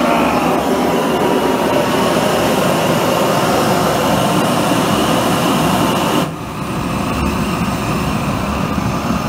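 Propane forge burner fitted with a high-flow oil nozzle, burning with a loud, steady rushing noise. About six seconds in the sound drops suddenly to a quieter, duller rush and stays there, as the fuel setting is changed.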